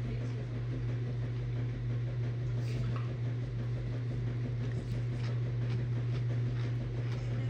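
A steady low hum, with faint scattered clicks and scuffs from a cat and a puppy wrestling on a leather couch.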